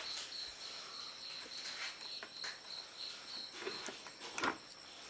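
A cricket chirring steadily in a fast high trill, heard faintly, with a few soft ticks and taps toward the end.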